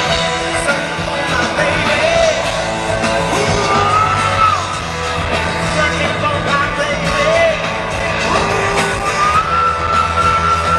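Live rock band playing, heard from within the audience, with a male lead singer holding long high notes.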